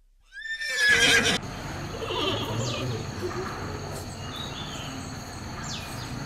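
A horse whinnying once, a loud call about a second long that wavers in pitch, followed by steady background noise.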